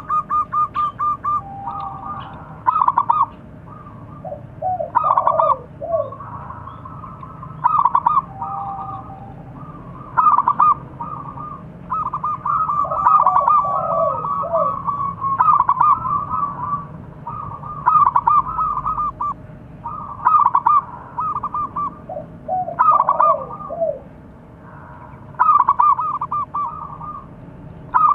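Zebra dove (perkutut) cooing: repeated phrases of quick rolling notes, one every two seconds or so, some ending in a few lower, falling notes.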